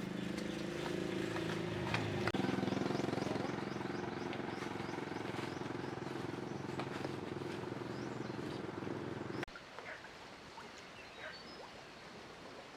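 An engine running steadily with a low hum that cuts off abruptly about nine seconds in, leaving faint outdoor clicks and bird chirps.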